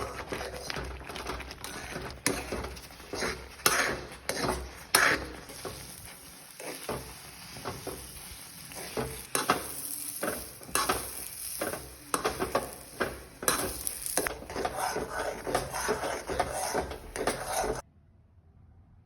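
A metal spoon scraping and clanking in a pan as semolina halwa is stirred, over a light sizzle. The sound cuts off suddenly near the end.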